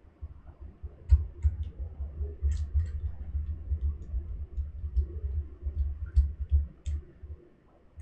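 Small screwdriver driving the retaining screw of a laptop's M.2 SSD back in: a run of light, irregular clicks over dull knocks of handling that stop about seven seconds in.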